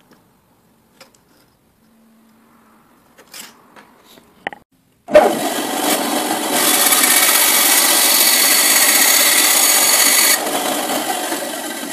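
A few light handling clicks, then a bandsaw starts suddenly about five seconds in. It gets louder while the blade cuts through a circuit-board blank, and drops back to the saw running on near the end.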